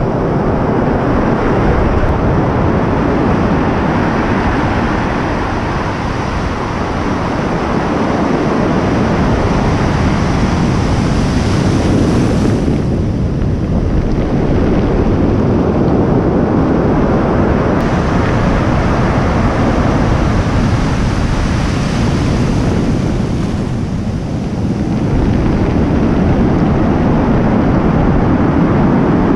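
Heavy surf breaking and washing up a cobble beach: a loud, continuous rushing that swells and eases, dipping briefly twice. Wind buffets the microphone.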